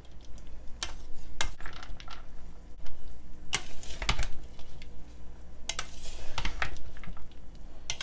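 Clear plastic salad servers tossing dressed pasta salad in a plastic bowl: irregular scraping and clicking of the servers against the bowl and the pasta.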